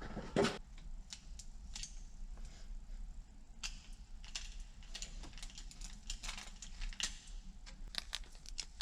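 Faint, irregular light clicks and clinks of metal parts being handled during work on a baler's PTO shaft and U-joints.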